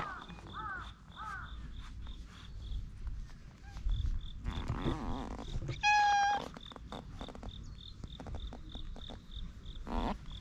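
Tabby-and-white stray cat giving one short meow about six seconds in, held at one pitch for about half a second and the loudest sound here.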